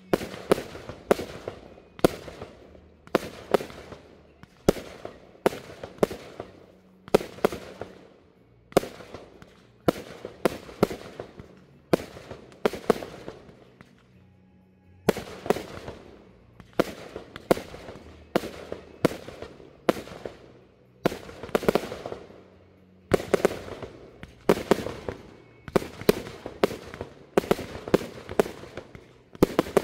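Aerial firework shells bursting in quick succession: sharp bangs every half second to a second, each trailing off. The bangs pause briefly about halfway through, then the barrage resumes.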